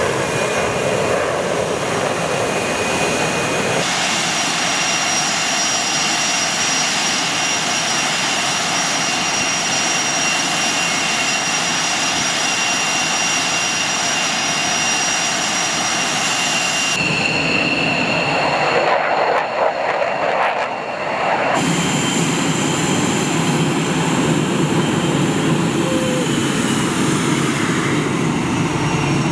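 Twin General Electric F404 turbofan engines of an F/A-18 Hornet running on the ground: a steady loud jet noise with a high whine. The sound changes abruptly about 4, 17 and 21 seconds in.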